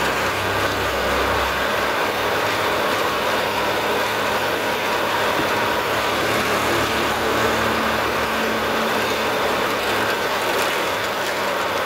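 Farm tractor's diesel engine running steadily under way, heard from the driver's seat.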